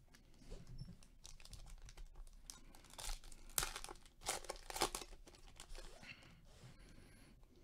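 Foil wrapper of a trading-card pack being torn open and crinkled by hand, the sharpest, loudest tears coming in the middle.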